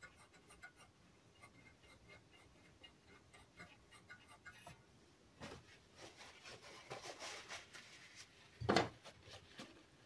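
Faint clicks and rubbing as the Grundig 4040W radio's dial mechanism is handled, with one louder knock near the end.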